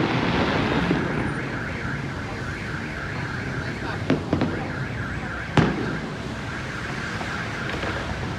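Fireworks shells bursting in sharp bangs: two close together about four seconds in and a louder one a moment later, over a continuous warbling car alarm set off in the street.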